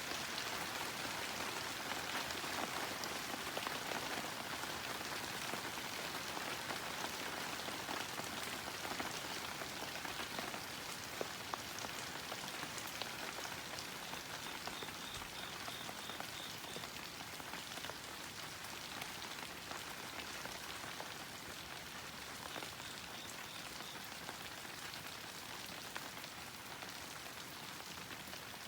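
Heavy autumn rain pattering densely and steadily, easing slightly over time. A cricket chirps in short pulsed trills twice, about halfway through and again a few seconds later.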